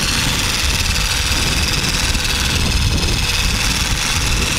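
Percussive massage gun running steadily against the chest muscles, a constant motor buzz.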